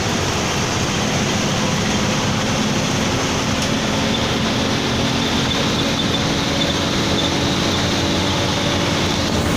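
Bus under way on the road: a steady engine drone with a constant pitch, mixed with dense road and tyre noise.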